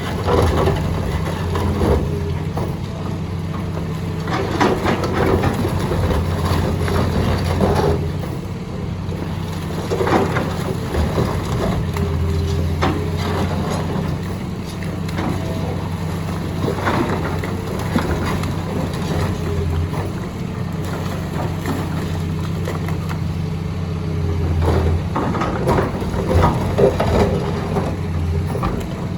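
Excavator's diesel engine running steadily under load, with repeated irregular cracks and crunches of concrete being crushed.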